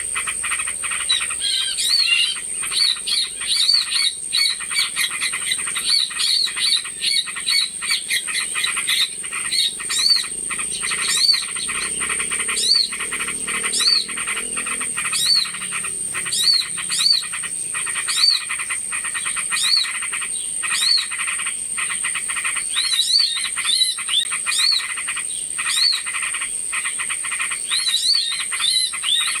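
Bird-lure recording of small birds calling: short up-and-down chirps repeating, several a second at first and then about one a second, over a dense rapid chatter. A steady high-pitched tone runs underneath throughout.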